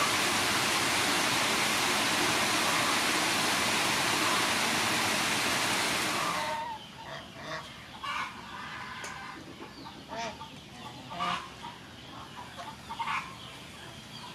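Heavy rain falling steadily, which cuts off suddenly about six and a half seconds in. After it, domestic fowl call in short, scattered clucks, several times.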